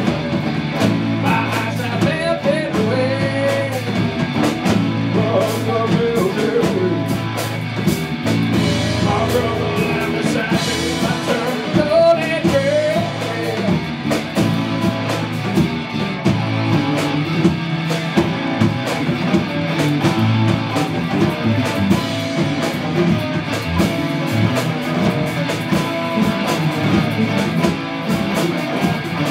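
A live rock band playing: two electric guitars, bass guitar and drum kit, with a man singing into a microphone over them.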